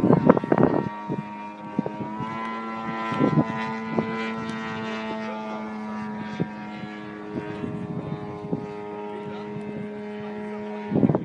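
Engine and propeller of a radio-controlled Pitts model biplane running steadily in flight as one even tone, which rises slightly in pitch about two seconds in.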